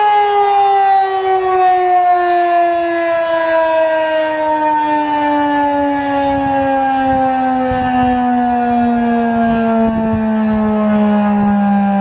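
Federal Signal 2001-SRN mechanical warning siren winding down: one loud tone falling slowly and steadily in pitch as the rotor coasts to a stop after its alert.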